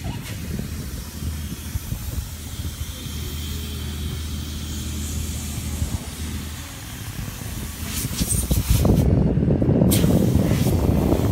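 Steady hiss of wind on the microphone with a low hum underneath. In the last couple of seconds it turns into louder, rumbling buffeting.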